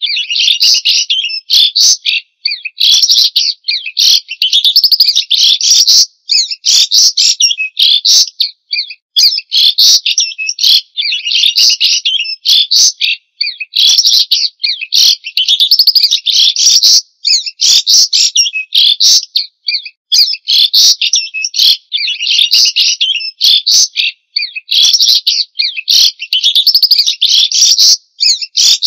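White-rumped shama singing loudly: a fast, dense stream of varied high whistles and chattering notes, in phrases a second or two long with brief pauses between them.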